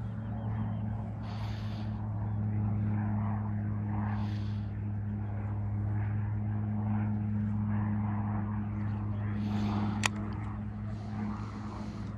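A steady low motor hum that swells up and then eases off, with one sharp click about ten seconds in.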